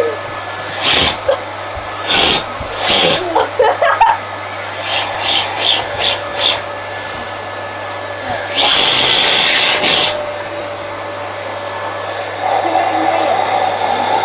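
Vacuum cleaner motor running steadily, with a run of short sharp bursts of noise over the first six seconds as something is pressed to or pulled from the nozzle. About nine seconds in there is a loud rush of air lasting a second and a half, and near the end the motor's tone changes.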